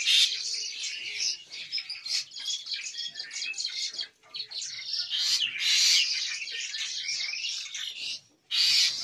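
Many caged starlings, Asian pied starlings and black-winged mynas of a breeding flock, chirping and calling all at once in a dense, high chatter, with louder calls now and then.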